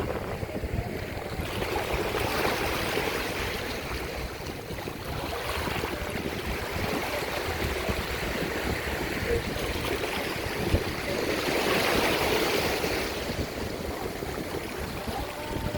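Sea waves washing on the shore: a steady rushing noise that swells twice, a couple of seconds in and again about twelve seconds in.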